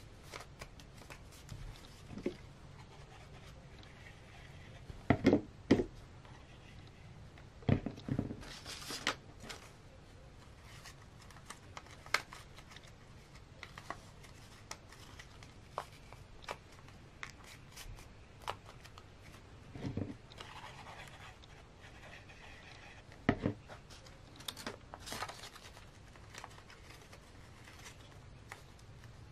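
Folded paper star pieces handled and pressed together by hand: scattered soft paper rustles and small clicks, with a few louder rustles a few seconds apart.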